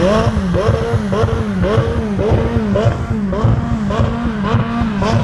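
A car engine being revved in quick repeated throttle blips, about two a second, its pitch climbing and falling with each blip.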